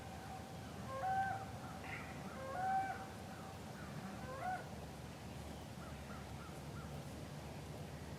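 Crows cawing, several caws spaced through the first half, over faint low outdoor rumble.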